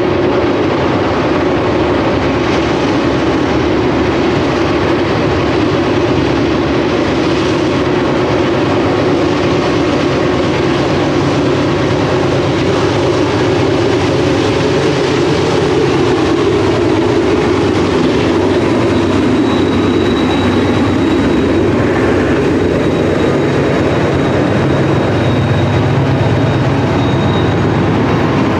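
Loaded coal hopper cars rolling past on the upgrade, then CSX GE diesel helper locomotives shoving at the rear of the train, their engines working hard under load. Their engine note grows stronger in the second half, with a thin high whine joining near the end.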